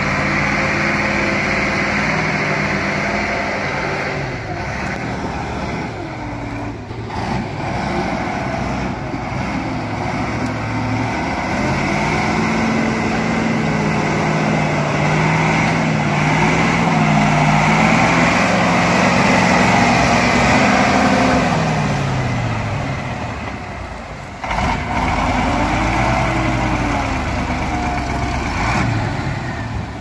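Ural-4320 6x6 logging truck's diesel engine working hard under a full load of logs in deep mud. The engine pitch climbs, holds, then falls away, and rises again near the end as the throttle is worked.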